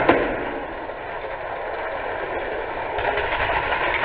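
A Hot Wheels spring launcher snaps as its push button fires two die-cast toy cars at once. The cars then roll down a long orange plastic track with a steady rattling rumble.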